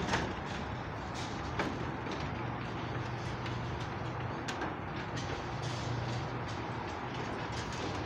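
Chamberlain WD832KEVG garage door opener running and raising a sectional garage door: a steady motor hum with the rumble of the door travelling up its tracks, and a few light clicks.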